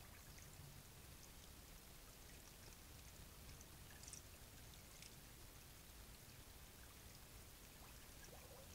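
Faint, steady trickle of a small creek flowing, with a few faint clicks about four and five seconds in.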